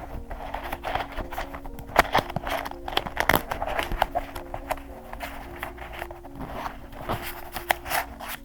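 Paper and journaling materials being handled: a run of close-up rustles, crinkles and small taps, over soft background music with slow held notes.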